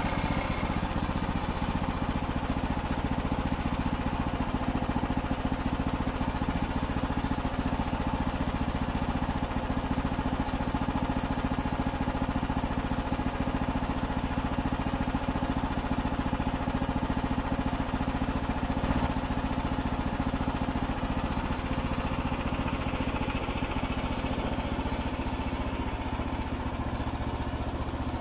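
Frontier OS27 portable bandsaw mill's small gasoline engine running steadily.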